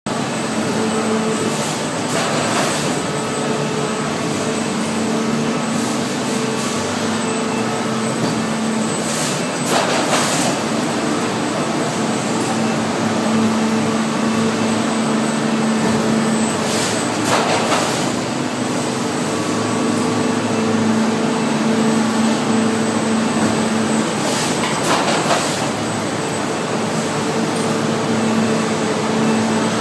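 Preform counting machine and its elevator conveyor running: a steady mechanical hum with a brief louder rush of noise about every seven to eight seconds.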